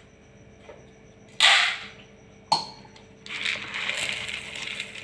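Dry roasted gram poured into a steel mixer jar, a spread-out rattle of many small grains landing during the last two seconds. Before it, a short loud scraping noise about a second and a half in and a sharp click a second later.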